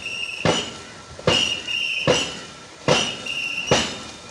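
Rhythmic knocks about every 0.8 seconds, five in all, each with a short shrill whistle, keeping stroke time for the rowers of a Kerala snake boat.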